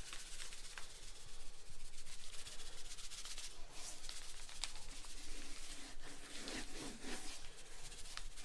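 Hands rubbing dry seasoning into a raw, skinned wild hog carcass, with more shaken from a plastic bag: a continuous soft, scratchy rubbing.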